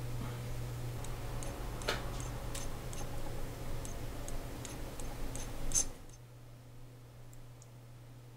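Small sharp clicks of steel watchmaker's tweezers handling a tiny jewel and its setting, scattered irregularly, with a steady low hum beneath that drops away about six seconds in.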